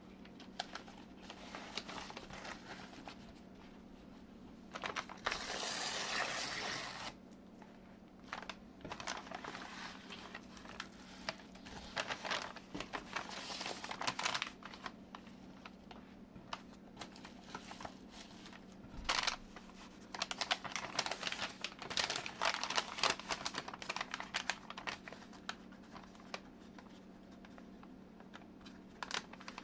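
Stationery parcel being unwrapped by hand: paper and plastic packaging rustling, with many small taps and clicks and one longer, louder rustle of about two seconds some five seconds in, over a faint steady hum.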